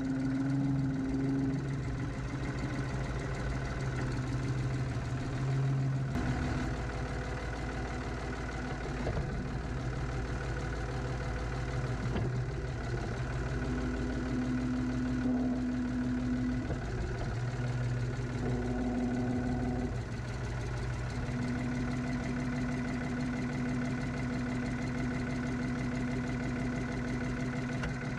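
Ford 4500 tractor-loader-backhoe engine running near idle, its speed shifting now and then as it is worked.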